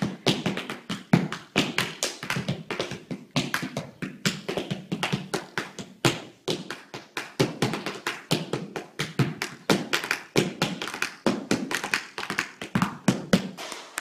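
Tap shoes striking a studio dance floor in a fast tap-dance routine: a continuous run of sharp taps, several a second, in an uneven rhythm.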